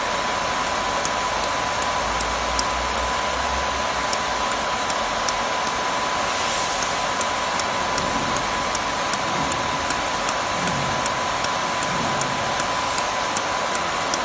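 Mini jewelry laser welding machine at work: a steady fan hiss with a constant high tone under a series of sharp clicks, about two a second, as the laser pulses fire on the aluminum alloy sheet.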